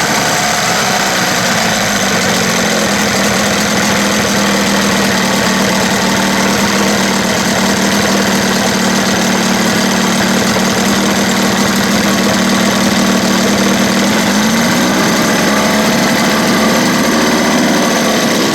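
1977 Evinrude 15 hp two-cylinder two-stroke outboard running at idle just after a cold start on choke. About fourteen seconds in, its speed rises and then settles back.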